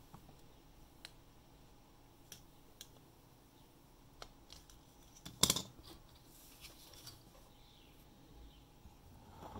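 Small hand tools clicking and scraping against a tablet during a repair, with scattered faint ticks and one louder cluster of clicks about five and a half seconds in.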